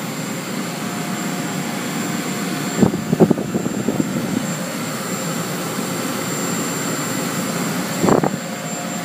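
Steady fan or blower whirring with a few faint steady tones in it. It is broken by a short cluster of knocks about three seconds in and a single knock near the end.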